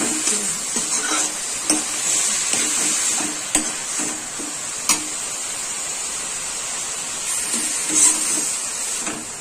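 Bamboo mushrooms frying in a metal kadai with a steady sizzle, while a metal spatula stirs and scrapes them. A few sharp clinks ring out as the spatula strikes the pan.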